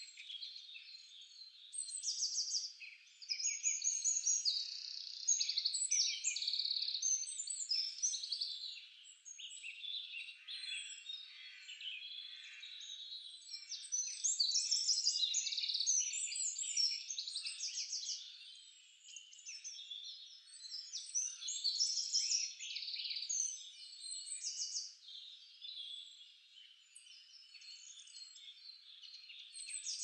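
A chorus of small birds chirping and twittering, many short overlapping calls that swell and fade in loudness.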